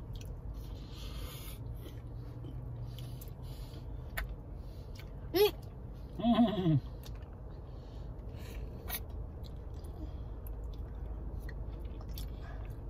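A child eating an ice-cream popsicle: small wet licking and chewing clicks over a steady low hum in the car cabin, with two short hummed vocal sounds about halfway through, the second falling in pitch.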